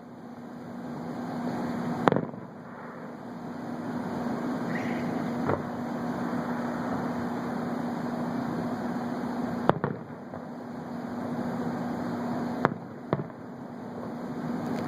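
Fireworks exploding, five sharp bangs a few seconds apart, the last two close together, over a steady hum.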